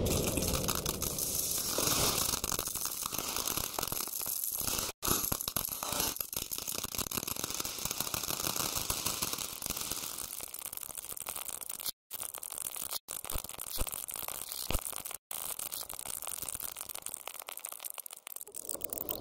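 Dense crackling, static-like noise with no clear tone, cut by a few sudden brief dropouts to silence, about five seconds in and again around twelve, thirteen and fifteen seconds.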